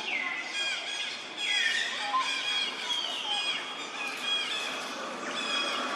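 Young macaque squealing and screeching in repeated high-pitched cries, several of them falling in pitch.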